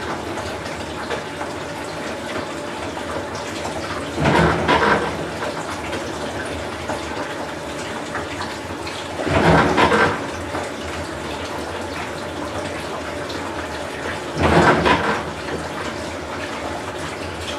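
Whirlpool Cabrio top-load washer running with water in the tub: a steady rush of water, with a louder sloshing surge about every five seconds, three times.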